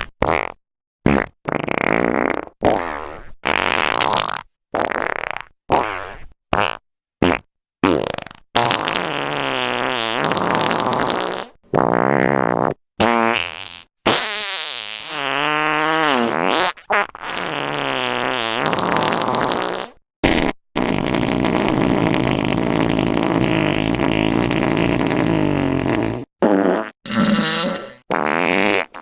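A fart sound effect compilation playing: a rapid run of separate farts with brief gaps between them, several long ones wobbling up and down in pitch, then one long steady fart through much of the second half.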